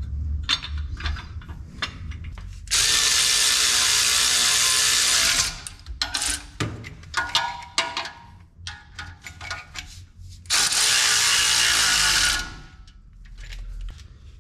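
A power tool runs twice, about 3 seconds and then about 2 seconds, each run starting and stopping sharply, as it drives the oil pickup tube bolts of an LS engine. In between come scattered clicks of ratcheting and tool contact.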